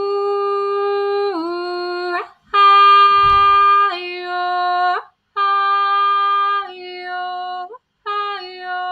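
A woman singing wordless, long-held notes in four phrases, each phrase stepping down in pitch, with short pauses between.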